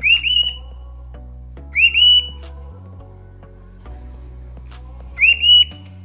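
Cockatiel whistling three times, each a short burst of quick rising notes, over soft background music.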